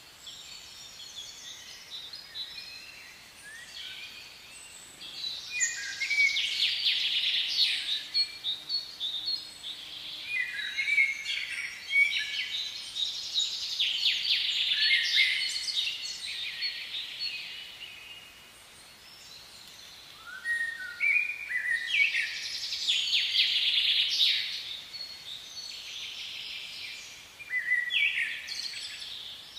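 Several songbirds singing in overlapping phrases and rapid trills, with a brief lull about two-thirds of the way through.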